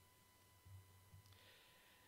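Near silence: room tone, with a faint breath a little past the middle.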